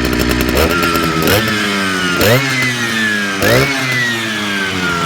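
Big vintage Jonsered two-stroke chainsaw running, blipped three times: each time the revs jump up quickly and then slowly fall back toward idle.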